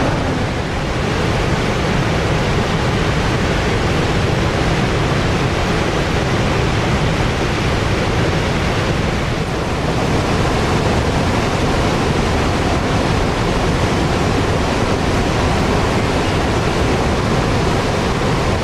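Horseshoe Falls at Niagara: a huge volume of water pouring over the brink and crashing into the gorge, heard as a loud, steady, unbroken rushing.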